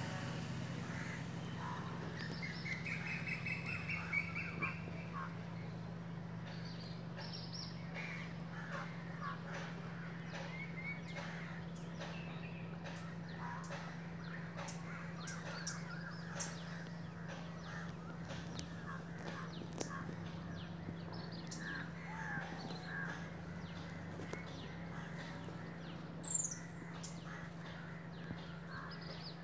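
Birds calling outdoors, with many short calls and chirps scattered throughout, a quick run of repeated notes a few seconds in, and one loud, sharp, high, falling call near the end, over a steady low hum.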